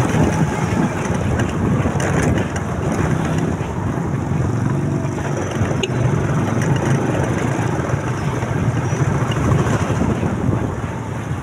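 Motorcycle engine running on the move, with steady road and wind noise on the microphone.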